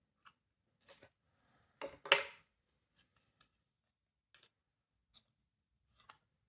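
A series of separate small clicks and snaps, the loudest a double snap about two seconds in: parts of a smoke detector and hand tools being handled while it is taken apart.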